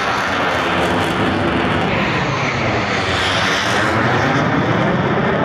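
Loud, steady jet roar of Blue Angels F/A-18 Super Hornets passing overhead, with a slow sweeping whoosh running through it.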